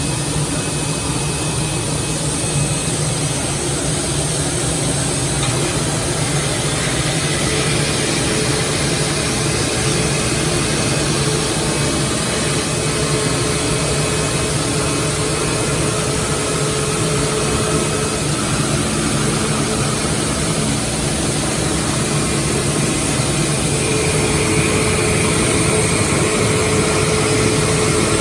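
Router spindle running a milling cutter through MDF: a steady loud machining noise with a constant high whine and fainter tones that come and go as the cut goes on.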